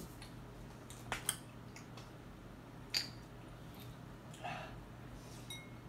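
Plastic water bottle being uncapped and handled: a few sharp plastic clicks and crackles about a second in and again at three seconds.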